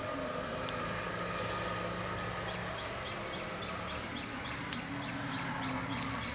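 A kitchen knife cutting broccoli florets off the head on a wooden board, giving a few short sharp clicks several times. Under it is a steady low hum, with a run of faint repeated bird chirps in the middle.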